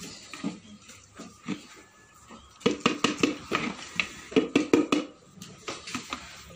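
A plastic scoop scraping and knocking against a concrete feed trough as cattle feed mash is stirred, with a quick run of clattering knocks between about two and a half and five seconds in.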